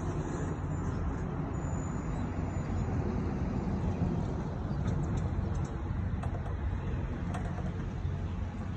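Steady low engine rumble, with a few faint clicks in the second half.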